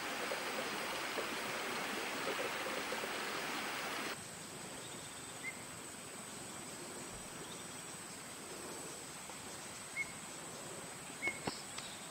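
Forest ambience with no elephant sound. A steady rushing noise cuts off abruptly about four seconds in. After that it is quieter, with a steady high insect whine and a few short chirps near the end.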